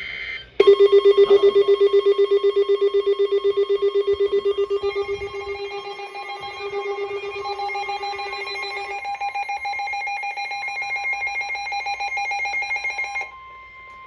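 Weather alert radios (AlertWorks receivers) sounding their alarms for an incoming NOAA Weather Radio warning: a loud, rapidly pulsing alarm tone starts just under a second in, a second, higher pulsing alarm joins about five seconds in, the first stops around nine seconds and the second cuts off near the end. Under them runs a steady tone near 1 kHz, the broadcast's warning alarm tone, which carries on after the pulsing alarms stop.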